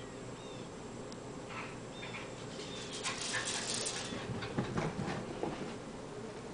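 Cairn terrier whining and whimpering, excited at a squirrel outside, with a louder, noisier stretch about three to five seconds in.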